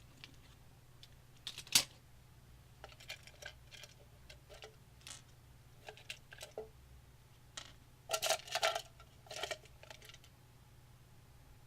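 Small metal screws and parts clicking and clinking as they are handled: scattered light taps, a sharper click about two seconds in, and a quick cluster of clinks near the end. A faint steady low hum runs underneath.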